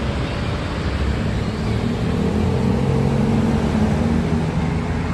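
Bus engine running steadily, mixed with road traffic noise.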